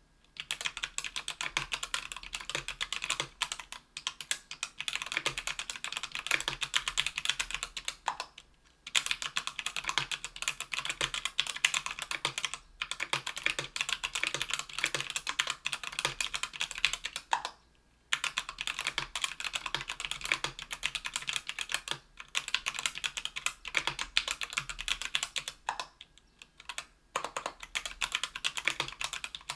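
Fast, continuous typing on a 60% aluminium-case keyboard with an aluminium plate and stock, unlubed CannonKeys Lilac tactile 65 g switches: a dense stream of keystroke clicks broken by a few short pauses.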